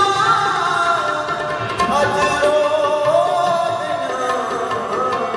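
Live qawwali: male singing with harmonium melody and tabla drumming.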